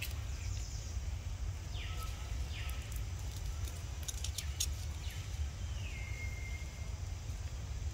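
Outdoor ambience: a steady low rumble with a few faint, high calls that fall in pitch, about two seconds in and again near six seconds, the last one settling into a short held note.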